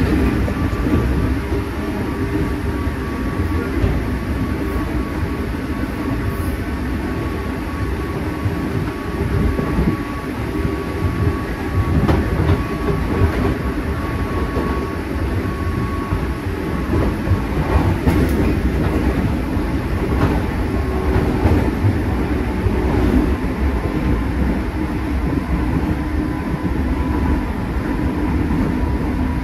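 JR East 205 series 3100-subseries electric commuter train running at speed, heard from inside the passenger car: a steady rumble of wheels on rail with occasional clacks over rail joints and a faint steady whine.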